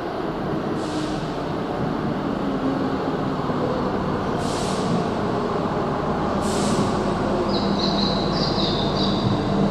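Keihan commuter electric train running into an underground station, its rumble of wheels and motors growing louder as it nears the platform. Three short air hisses come about 1, 4.5 and 6.5 seconds in, and a run of short high brake squeals starts near the end as it slows.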